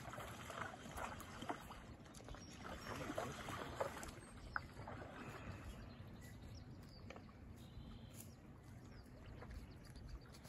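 Quiet water sounds around a kayak, with a few small splashes in the first half and calmer water after about five seconds.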